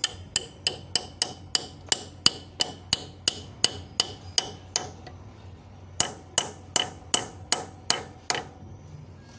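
Steel hand hammer striking a tight lock pin, not yet fully seated, into a forklift's king-pin steering knuckle. The metal-on-metal blows ring out at about three a second: a run of about fifteen, a pause of about a second, then seven more.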